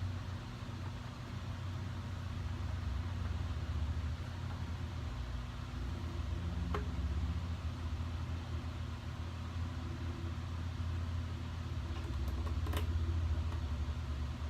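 A steady low mechanical hum, with two light clicks, one about halfway through and one near the end.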